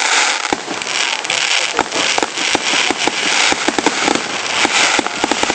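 Aerial fireworks going off in quick succession: a dense crackle with many sharp pops and bangs layered close together.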